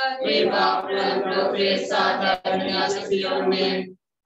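Several voices reciting a prayer together in a steady, chant-like unison, heard over a video-call connection. The sound cuts off abruptly just before the end.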